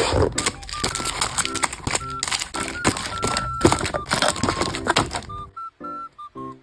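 Crinkling, rustling and clicking of packaging being handled while an order is packed, over light background music; the handling stops about five and a half seconds in, leaving only the music.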